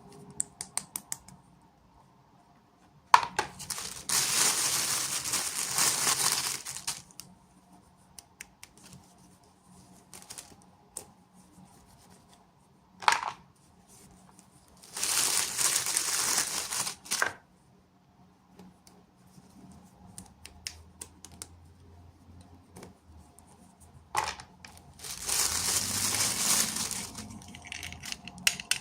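Packaging being unwrapped: three long stretches of tearing and crinkling, with small clicks and taps of handling between them.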